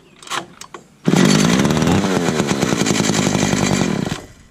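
Stihl 015 chainsaw's two-stroke engine fires about a second in on fuel primed into the carburetor, revs up, runs for about three seconds, then dies. It runs only on the primed fuel and won't draw fuel from the tank, a fuel starvation that the owner puts down to a blocked carburetor.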